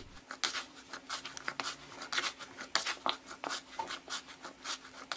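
Hands kneading soft yeast dough in a plastic bowl: an irregular run of soft slaps, clicks and rubs as the dough is pressed, folded and pushed against the bowl.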